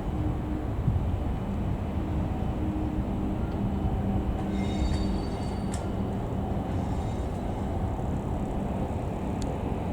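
JNR Class DE10 diesel-hydraulic locomotive running, a steady low engine rumble and hum. Two brief high-pitched squeals come about halfway through.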